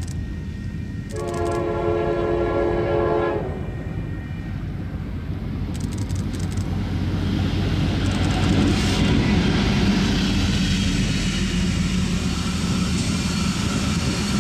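A Union Pacific SD70-series diesel locomotive sounds one horn blast of about two seconds, about a second in. The train then comes close and passes, its diesel engine and wheels on the rails rumbling louder from about halfway through and staying loud to the end.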